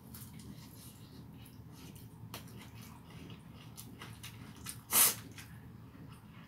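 Mouth sounds of a person eating chicken and rice by hand: soft chewing and small wet clicks over a low steady hum, with one short, loud puff of noise about five seconds in.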